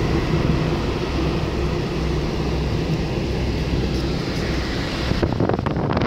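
Car driving on an asphalt road: steady engine and tyre rumble. About five seconds in, wind starts buffeting the microphone in gusts.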